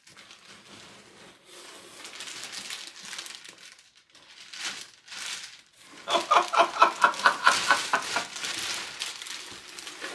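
Clear plastic bag crinkling as a puppet is pulled out of it. About two-thirds of the way through, a man laughs in quick, rhythmic pulses for a few seconds; this is the loudest part.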